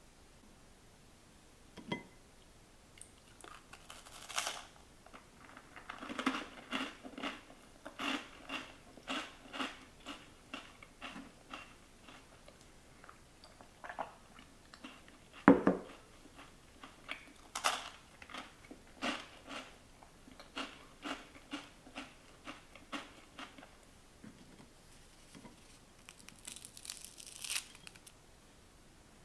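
Crisp sesame seed cookies crunching: a long run of short, dry crunches, with one louder knock about halfway. Near the end a cookie is snapped and broken apart with a grainy crackle.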